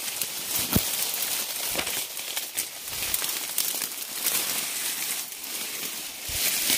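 Ferns and dry leaf litter rustling and crackling as someone pushes through dense undergrowth, with a dull knock about a second in.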